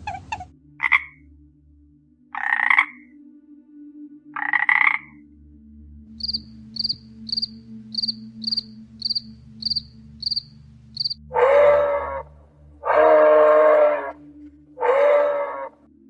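Three short animal calls, then a grasshopper chirping, short high chirps about twice a second, followed by three loud, drawn-out calls of a large deer.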